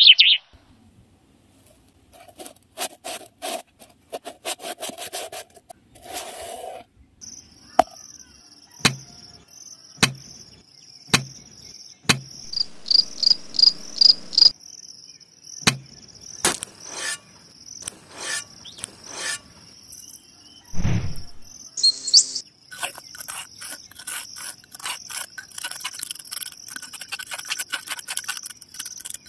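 Crickets chirping steadily in a high thin tone, over a series of sharp clicks and knocks as clay pots and tools are handled. Near the end comes a dense run of scraping: a metal spatula stirring dry cement powder and gravel in a clay pot.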